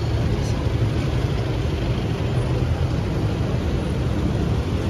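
Street traffic: a steady low rumble of engines from cars, motorcycles and motorized tricycles passing close by.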